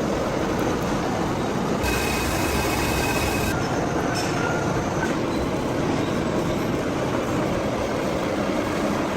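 Heavy metalworking machinery running with a steady loud rumble and grind, and a thin high whine from about two to three and a half seconds in.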